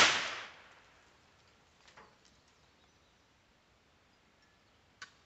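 The tail of a .22 rimfire rifle shot, dying away over most of a second. A faint click comes about two seconds in and another near the end.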